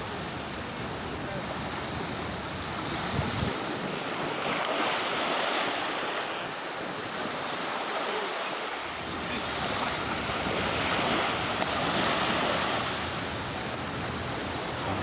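Sea waves breaking and washing ashore, swelling louder about twice, with wind buffeting the microphone.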